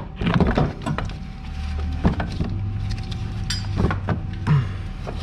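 Scattered knocks, clinks and scrapes of metal parts and tools being handled as the replacement CV axle is worked back into place, over a steady low hum.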